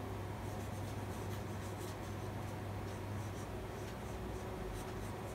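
Faint scratching of a paintbrush stroking gouache onto sketchbook paper, over a steady low hum.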